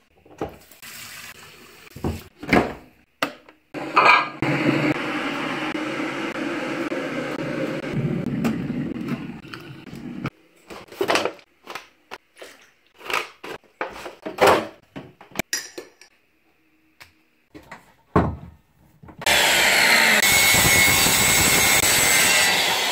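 Kitchen sounds while tea is made: water runs for several seconds and stops abruptly, then cups and a plastic milk bottle clink and knock. Near the end an electric saw starts cutting wood and runs steadily.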